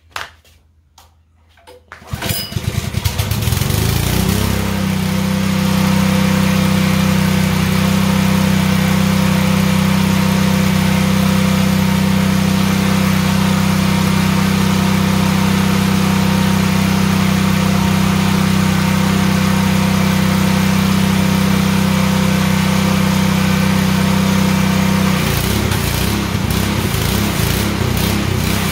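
DeWalt 3600 PSI gas pressure washer being pull-started for its first run: a couple of tugs on the recoil starter, then its small engine catches about two seconds in, settles, and runs steadily. Near the end the engine note changes and turns uneven as the pump comes under load when the spray wand is triggered.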